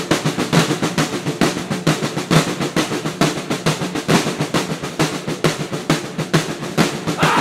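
Drum intro of a song: fast, even drum hits played without other instruments.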